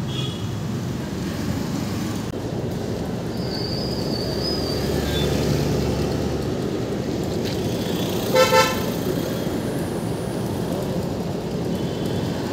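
Steady riding noise from a 110cc TVS Star City Plus motorcycle on the move: its engine, the road and the wind. About eight seconds in, a vehicle horn gives one short honk.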